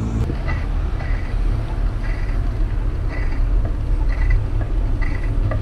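Wind rumbling on the microphone of a camera riding on a moving bicycle, with a few short high chirps about once a second.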